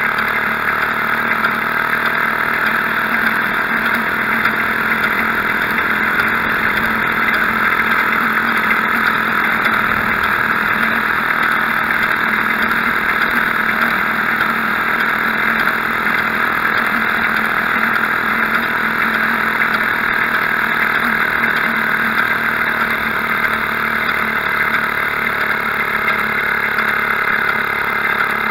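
Maytag Model 72 twin-cylinder two-stroke washing-machine engine running at a steady speed while powering a homemade motor bicycle along. The sound is loud and even throughout.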